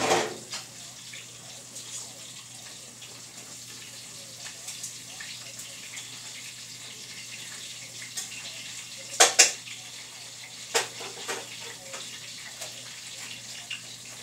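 Crappie fillets in cornmeal frying in hot grease in a skillet: a steady sizzle, with a few sharp pops or clicks, two close together past the middle and another a second and a half later.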